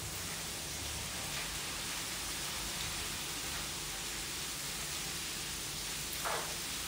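Sliced bell peppers sizzling in a hot frying pan on a gas stove, a steady even hiss.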